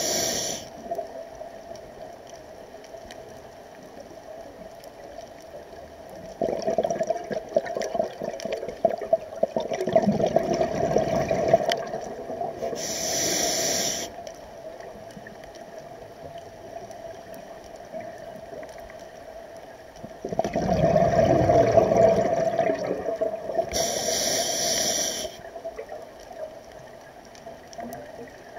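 Scuba regulator breathing heard underwater. Three short hissing inhalations through the demand valve alternate with two longer runs of exhaled bubbles rumbling out of the exhaust, over a steady hum.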